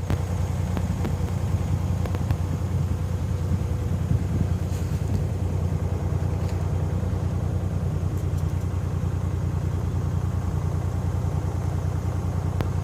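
Cat 301.5 mini excavator's engine running steadily at a constant speed, a low, even throb with a few faint clicks over it.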